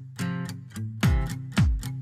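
Background music with repeated chords; a deep beat comes in about a second in, about two beats a second.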